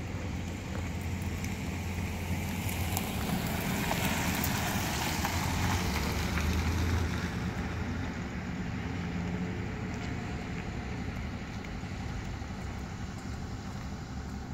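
Road traffic: a vehicle passing, its noise swelling over a few seconds and then fading, over a steady low hum.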